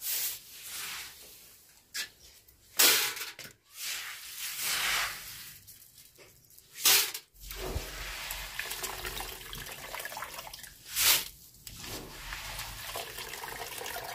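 Hands scooping soaked paddy (unhusked rice) out of a plastic tub into a metal basin: a wet rustle of grain with water dripping and trickling off it, broken by a few short, loud rasps. A short hand broom sweeps spilled grain at the start.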